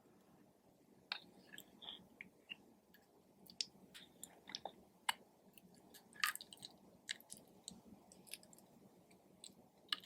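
Clear slime being squished and kneaded by hand, giving irregular small clicks, pops and squelches.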